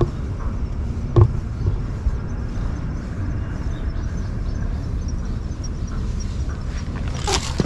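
Wind rumbling on an action-camera microphone, with a single knock about a second in and a short cat meow near the end.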